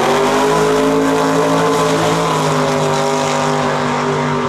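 Ford Maverick drag car's engine at full throttle launching down the drag strip: its pitch climbs sharply at the start, then holds high and steady, fading slightly near the end as the car pulls away.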